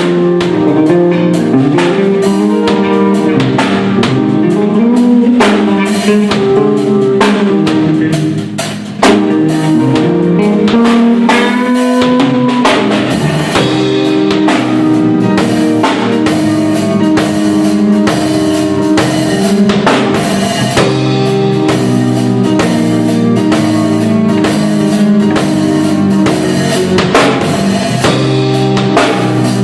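A band of electric bass, keyboard and drum kit playing a song together, with sustained keyboard chords over a steady drum beat. The music dips briefly about eight seconds in, then comes back on a loud drum accent.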